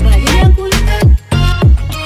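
Background music with a steady beat: deep bass drum hits falling in pitch, about two a second.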